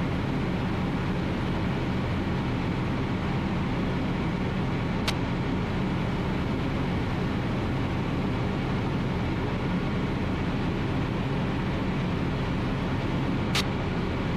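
Ultralight aircraft's engine and propeller running steadily in cruise flight, heard from inside the cockpit. Two brief faint clicks, about five seconds in and near the end.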